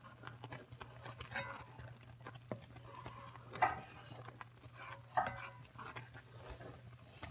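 A wooden spoon stirring and scraping through a boiling coconut milk and condensed milk fudge mixture in an aluminium pot, with a few short pitched scrapes or squeaks about one and a half, three and a half and five seconds in, over a steady low hum.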